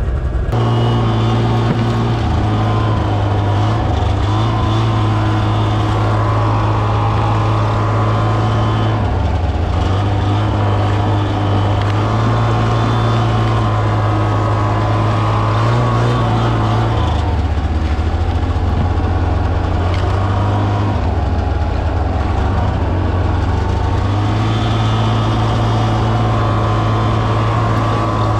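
Snowmobile engine running at speed, heard from on board the moving machine. The engine note holds steady but dips lower several times, once about a third of the way in and twice more in the second half, each dip lasting a second to a few seconds.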